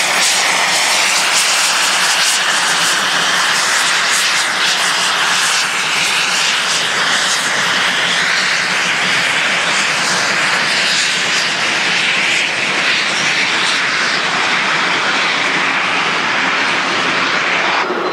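Two steam locomotives double-heading a passenger train at speed, working hard, their rapid exhaust beats blending into a loud, steady rush.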